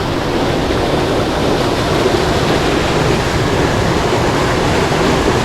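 Creek water rushing, a loud steady noise with no breaks.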